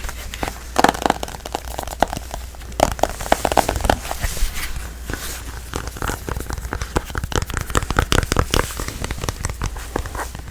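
Fingers and nails tapping and scratching on a smartphone and its case: rapid, irregular clicks in quick runs, with a faint crinkly crackle.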